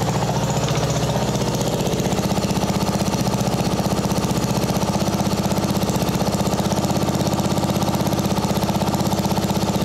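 1997 Briggs & Stratton flathead engine of a riding mower idling steadily with an even pulse, its sound shifting slightly about two seconds in, while its carburettor mixture screw is being adjusted after a carb repair.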